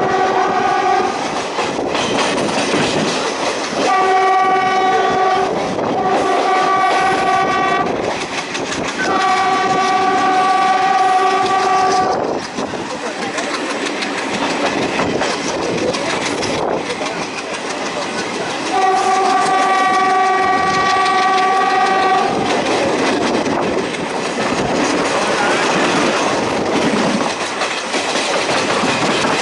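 Indian Railways WDM-2 diesel locomotive sounding its air horn in repeated blasts as it hauls an express train through a station at speed: two short blasts about 4 and 6 s in, then longer ones about 9 s and 19 s in. Between blasts the train rushes past with a continuous rattling clickety-clack of wheels over the rail joints.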